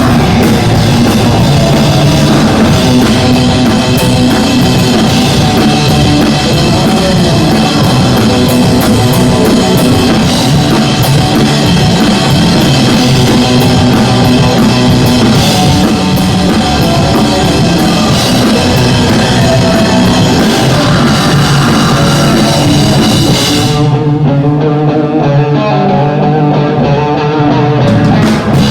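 Live band playing loud rock music, with guitar and drums prominent. About 24 s in, the high, crashing part of the sound drops away for a few seconds while the lower instruments keep playing, and the full band comes back in just before the end.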